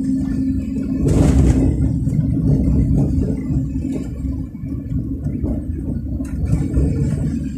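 Steady low engine and road rumble inside the cab of a vehicle driving at speed on a concrete highway, with a short hiss about a second in.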